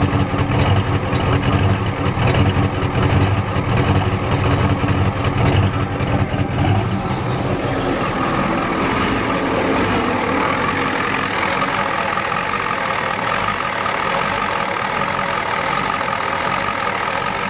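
1993 Ford F-250's 7.3L IDI V8 diesel idling rough. It is heard first at the tailpipe as a low, uneven exhaust note, then from under the hood, where the sound is brighter and less deep from about halfway through. The owner takes the rough running for injection timing that is out of time, which he blames on the injection pump.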